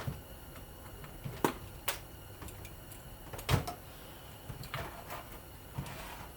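Scattered clicks and knocks of hand tools and small metal parts being handled while a ceiling fan is taken apart, with one sharper knock about halfway through.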